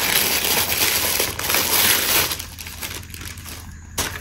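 Plastic wrapping crinkling and rustling as it is handled and pulled off a new handbag, loud for the first two seconds, then softer, with a sharp click near the end.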